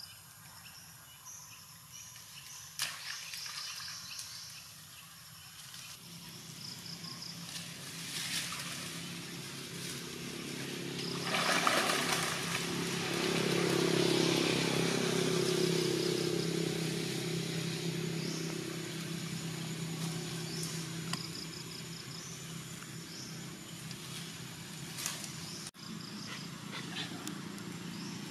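Motor vehicle engine humming steadily, building up over several seconds and then slowly easing off, as a vehicle passing by. Repeated high chirping from wildlife sounds over it.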